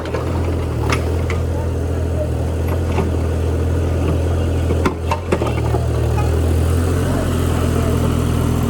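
A vehicle engine running steadily, with a few short knocks about one, three and five seconds in.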